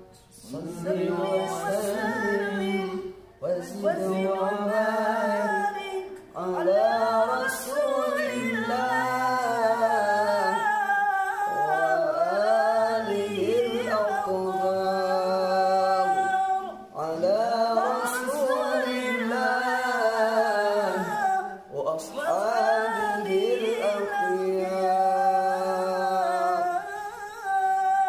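A woman reciting the Qur'an in melodic tilawah style, unaccompanied. She sings long ornamented phrases with held notes, broken by short breath pauses.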